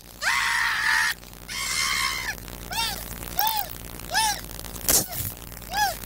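A man screaming hoarsely twice, then giving four short, honk-like cries that rise and fall in pitch; a single sharp click about five seconds in.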